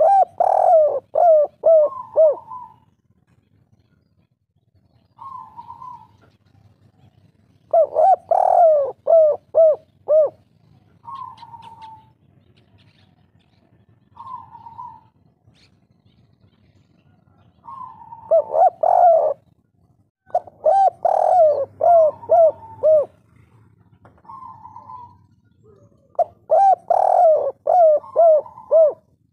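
Spotted dove (tekukur/derkuku) cooing in the 'kuk 3' style. Five loud phrases of quick coos falling in pitch, with softer, higher single coos between them.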